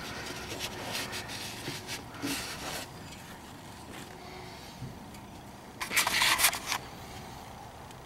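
Hand wiping the oil filter mounting surface on an ATV engine block, making scattered rubbing and scraping noises, with a louder rustle about six seconds in.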